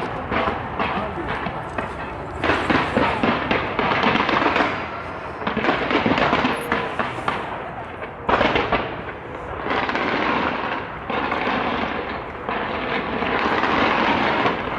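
A fireworks display bursting in dense, continuous volleys, with heavy crackling that swells and eases in waves every few seconds.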